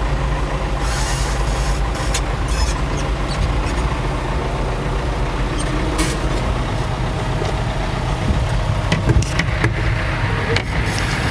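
Farm tractor engine running steadily while backing an empty wagon, with a few sharp clicks and knocks scattered through.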